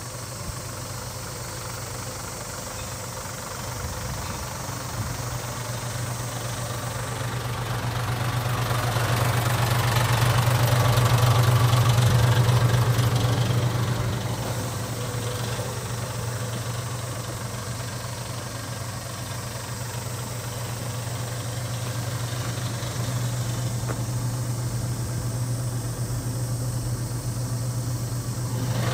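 Mitsubishi Fuso Fighter Mignon dump truck's 6D17 straight-six diesel idling steadily, a low even hum that grows louder for a few seconds around ten seconds in and then eases back.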